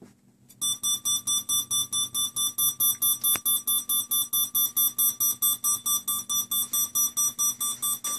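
Electronic alarm clock beeping rapidly and evenly, about six or seven high-pitched beeps a second, starting just under a second in.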